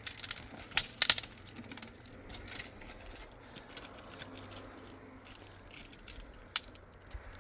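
Scattered sharp clicks and clatters: a cluster about a second in and a single sharp click near the end, over a low steady hum.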